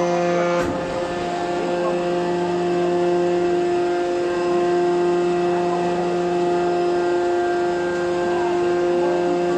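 Hydraulic press's power unit running with a steady, even hum made of several held tones. A single sharp click sounds about half a second in.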